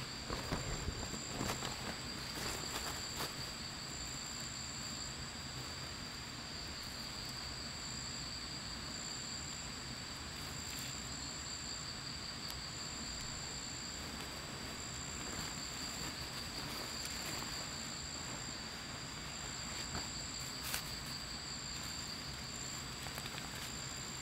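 Steady insect chorus made of two high trills, one continuous and a higher one that breaks on and off every second or so. A few light clicks and rustles come near the start and once about two-thirds of the way through.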